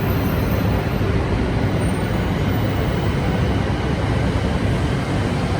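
Steady rumble of a Tohoku Shinkansen train, an E5 series coupled with an E3-0 series set, at the platform.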